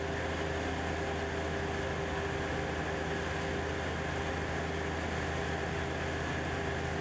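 Steady mechanical drone: a low hum with several held tones under an even hiss, unchanging throughout.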